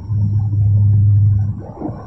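Propellers of a turboprop airliner heard inside the cabin: a deep, steady drone that swells, holds, and then dips near the end in a slow throbbing pulse.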